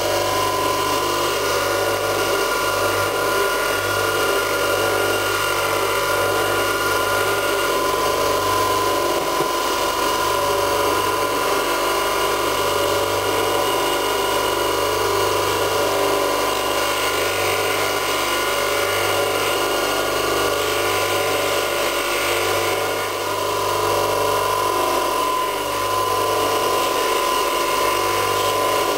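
Bench polishing motor running steadily with a grey abrasive wheel: a constant low hum with a high whine. A small cast silver pendant is held against the spinning wheel to smooth and polish it.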